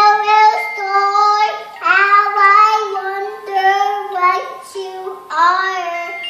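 A toddler girl singing in a high child's voice, a run of held notes with short breaks between them.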